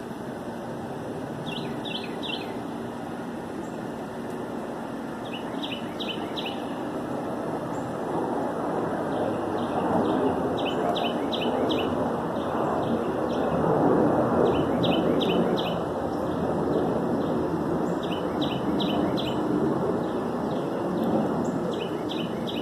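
A songbird singing a repeated phrase of three or four quick high notes, about every three to four seconds, over a steady background rush that swells in the middle.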